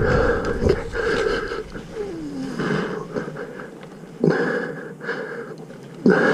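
A person breathing hard and wheezing close to the microphone, with loud breaths coming every second or two, as from the exertion of a tree climb.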